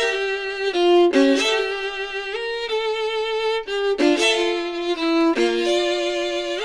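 Solo violin music played back from a vinyl record through a Schiit Mani phono preamp: a single melodic line of held notes, now and then two notes bowed together.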